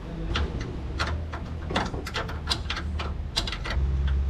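Irregular clicks and clinks of hand tools working on metal fittings, over a steady low hum.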